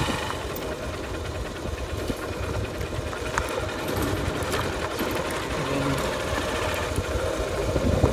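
Motorcycle engine running steadily while riding, with road noise and a few faint ticks.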